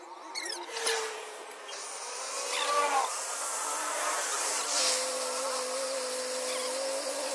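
A machine running with a steady buzzing hum that settles in about halfway through, after a few sharp clicks and scrapes with sliding tones in the first seconds.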